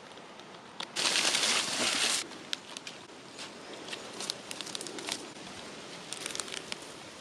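Rustling and crackling of moss, twigs and dry plant matter being handled. There is a loud burst of rustling about a second in that lasts about a second, then scattered small snaps and crackles.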